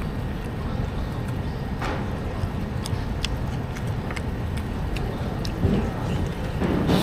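Steady low background rumble of a city street, with scattered light clicks and taps from eating with chopsticks.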